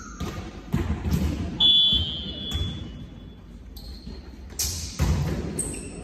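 Volleyball play in a sports hall: several sharp ball strikes and thuds ring out in the echoing hall, with a short high squeak about a second and a half in and some faint calls from players.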